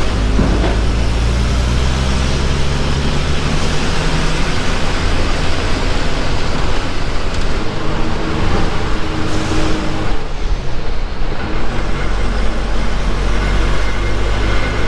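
Bus engine running with road noise, heard from inside the bus; the engine note shifts in pitch a few times.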